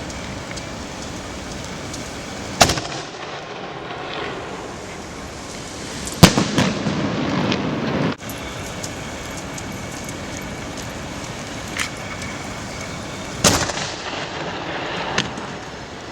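3-inch aerial firework shells going off: five sharp bangs, the loudest about six seconds in and two of them smaller, some followed by a rumbling echo. A steady hiss sits underneath.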